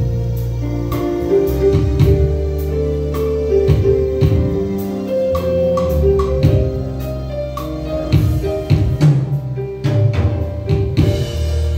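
Live church band music: held keyboard chords and bass notes over a steady drum beat.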